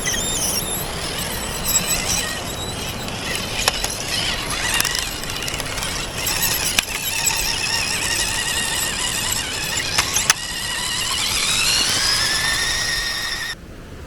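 Radio-controlled car's small electric motor and gears whining, the pitch wavering with the throttle, with a few sharp clicks. Near the end the whine rises steadily as the car speeds up, then cuts off abruptly.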